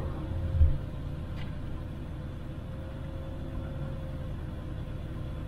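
Motorhome engine and road noise heard from inside the cab while driving slowly, a steady low rumble, with a low thump about half a second in.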